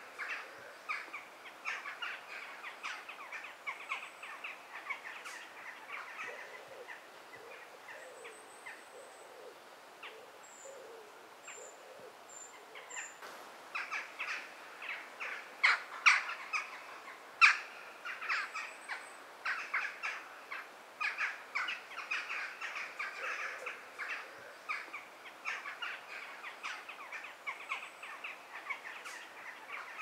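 A chorus of wild birds calling: dense, rapid chattering calls, with a few thin high chirps and some low hooting notes. It thins out for a few seconds about a third of the way in, and two sharper, louder calls stand out around the middle.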